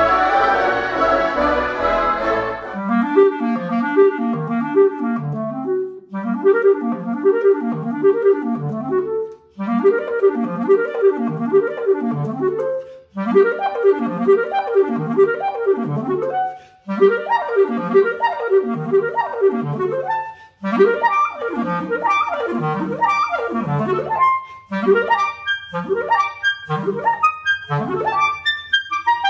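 A large woodwind ensemble of bassoons, contrabassoons and clarinets holds a final chord that cuts off about three seconds in. Then a solo soprano clarinet plays fast arpeggio runs sweeping up and down its range, in phrases a few seconds long with short breaths between them, and ends with quicker detached notes.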